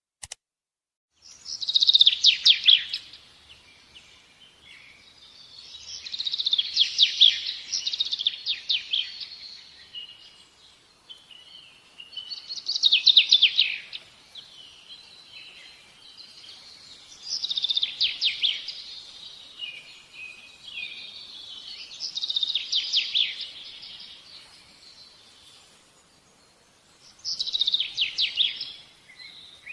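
A bird singing: six short, high-pitched trilled phrases, one about every five seconds.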